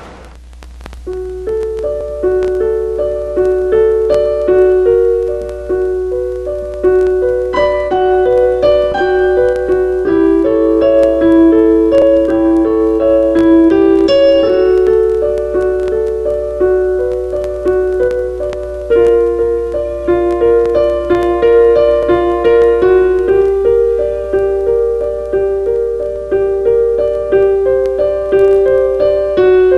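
Piano music: a repeating pattern of sustained notes that starts about a second in, over a steady low hum.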